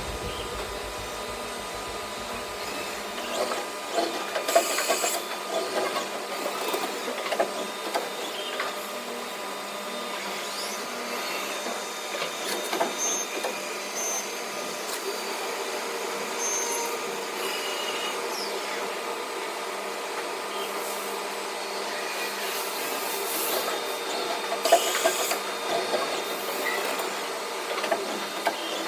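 Five-axis CNC milling machine cutting a workpiece: a steady whine with several held tones, broken by irregular bursts of cutting noise a few seconds in and again near the end.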